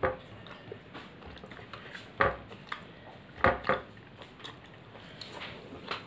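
Eating sounds: a boy chewing food, with a few short, sharp clinks of dishes, one at the start, one about two seconds in and a pair about three and a half seconds in.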